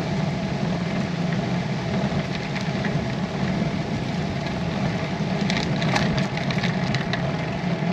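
Wind buffeting the microphone of a bike-mounted camera: a steady low rumble, with a few faint ticks a little past halfway.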